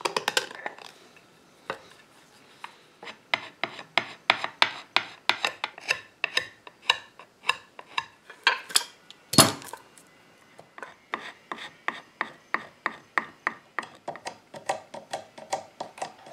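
A hand blade scraping and paring old glue and wood from a wooden chair leg's joint in short, quick strokes, about two or three a second, with one sharp knock about nine seconds in.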